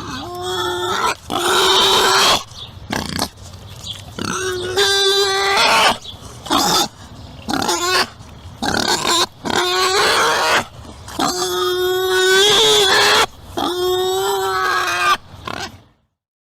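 An animal calling over and over: about eight loud, pitched, squealing calls, some harsh and rasping, with short pauses between them.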